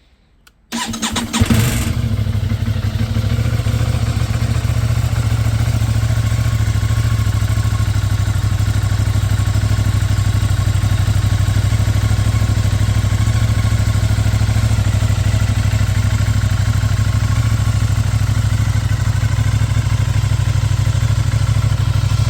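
Aprilia RS 660's 659 cc parallel-twin engine cold-started through its stock exhaust: the starter cranks briefly under a second in, the engine catches with a short blip, then settles into a steady idle.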